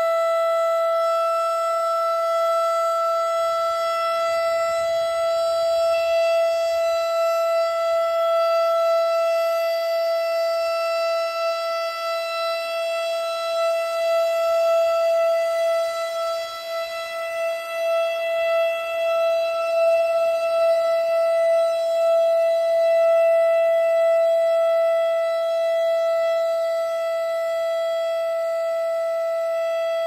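Federal Signal STH-10 outdoor warning siren sounding its steady alert signal up close: one unbroken high tone with strong overtones, loudness wavering slightly.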